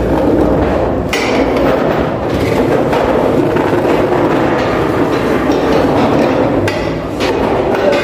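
School desks and chairs dragged across a hard floor: continuous scraping, broken by sharp knocks about a second in, about two seconds in, and twice near the end.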